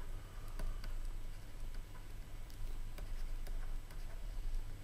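Faint, irregular light ticks of a stylus tapping and writing on a tablet screen, over a low steady hum.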